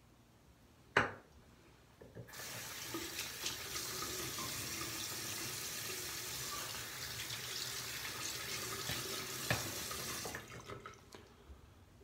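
A sharp knock about a second in, then a sink tap runs steadily for about eight seconds and is shut off, with a few small knocks after.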